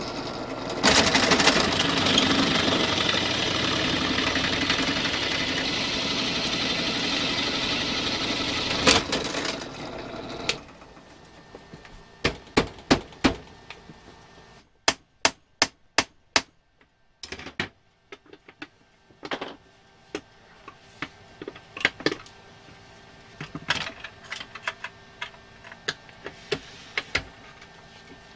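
Drill press running, its bit cutting into the metal housing of a 1960s Duncan Duplex parking meter. The cutting gets louder about a second in and stops about ten seconds in. After that come scattered sharp clicks and knocks of metal parts being handled.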